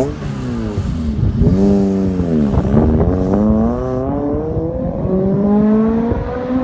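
Toyota MR2 Spyder with a 2ZZ-GE 1.8-litre four-cylinder and a custom exhaust accelerating hard through the gears. The exhaust note climbs in pitch and drops back at each upshift. After about four seconds it turns duller as the car gets farther away.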